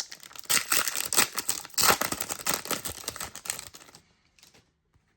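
A trading-card booster pack's wrapper being torn open and crinkled by hand, a dense crackling rustle that stops about four seconds in.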